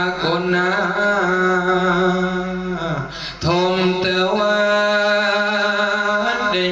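A Buddhist monk chanting a sermon in a slow, melodic, sung style, in a male voice. He holds long drawn-out notes in two phrases, with a short break about three seconds in.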